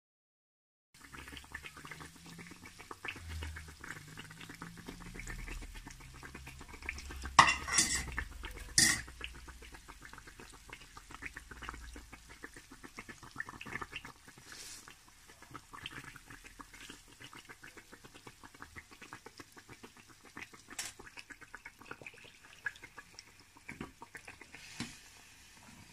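Handesh cake deep-frying in hot oil: a dense, steady crackle and sizzle of the bubbling oil, starting about a second in. A metal utensil clacks against the pan a few times, loudest twice around the middle.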